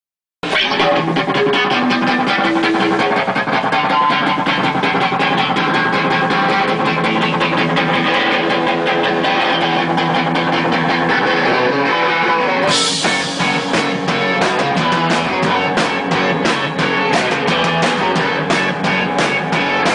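Live rock band playing: electric guitars start the song, and about two-thirds of the way in a cymbal crash marks the drums and full band coming in.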